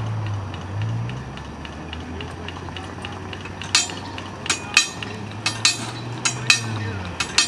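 Sharp metallic clinks start about four seconds in and repeat in an uneven beat, each with a short ring: the bell of an ex-Santa Fe wig wag crossing signal striking as it is set off by an approaching live-steam train. A low rumble runs underneath.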